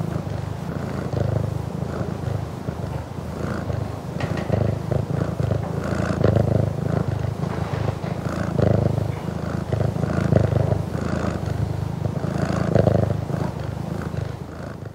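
Burmese cat purring close up, a continuous low rumble that swells and eases with each breath about every two seconds.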